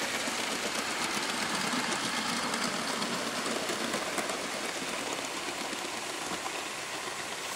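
Garden-scale live-steam model train running on its track: a steady hiss with faint wheel ticks, slowly fading as it moves away.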